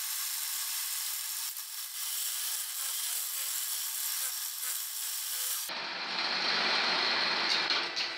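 Vertical milling machine with an end mill cutting into the aluminium around a valve seat of a BMW M50/M52 cylinder head, a steady scraping machining noise as the metal around the seat is milled away to free the seat. The sound is thin and high at first and turns fuller and lower about six seconds in.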